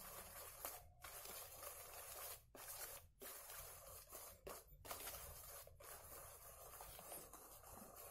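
Faint scraping and stirring of a utensil mixing a floury batter against the inside of a stainless steel bowl, barely above the background hiss.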